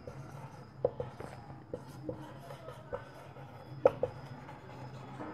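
Marker pen writing on a whiteboard: short, irregular taps and scratchy strokes, the sharpest about a second in and near four seconds, over a low steady hum.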